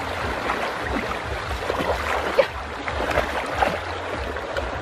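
Water splashing and sloshing as people wade and grope through a shallow river, over a steady rush of water with a low rumble of wind on the microphone. A brief high-pitched blip about halfway through stands out above the splashing.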